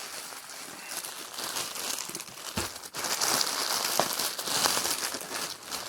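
Mail-order package being opened: packaging crinkling and tearing, with a few sharp crackles, louder from about halfway through.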